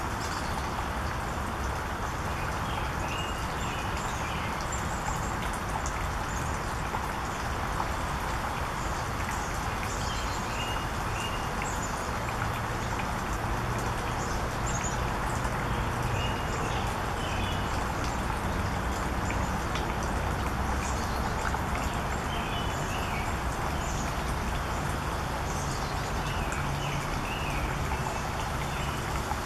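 Black-capped chickadees giving short, high chirping calls in about five brief clusters, over a steady background hiss.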